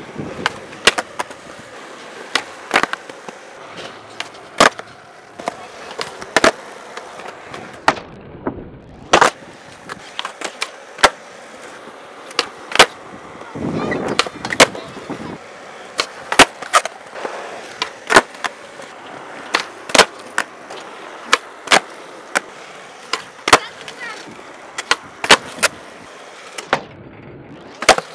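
Skateboards on concrete flatground: many sharp pops of the tail and slaps of the board landing, usually a second or two apart, with the wheels rolling on concrete between them.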